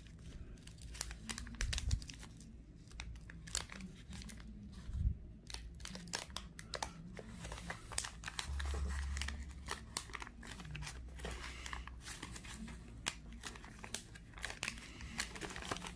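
Waxed-paper wrapper of a 1984 Donruss baseball card pack being peeled open by hand: irregular crinkling and crackling of the stiff wax paper, with small tearing as the sealed flaps come apart.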